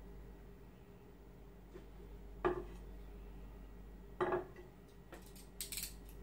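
Two short dull knocks about two seconds apart, then a quick run of light, sharp clicks and clinks near the end, over a faint steady low hum.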